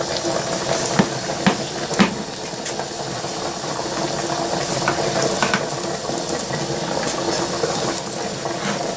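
Knife and then a metal spoon cutting through the baked pastry crust of a chicken pot pie, with a few sharp clicks and scrapes of metal against the pie dish, over a steady hiss.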